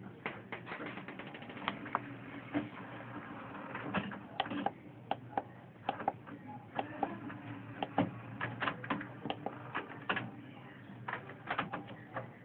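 HP Photosmart 8750 inkjet printer working: a string of irregular mechanical clicks and ticks over a faint steady hum.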